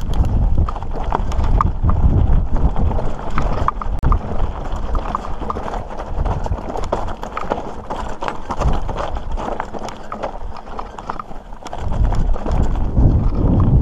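Mountain bike rolling fast over loose, rocky singletrack: a dense clatter of clicks and rattles from the tyres and bike on the stones, over a low wind rumble on the bike-mounted microphone that grows stronger near the end.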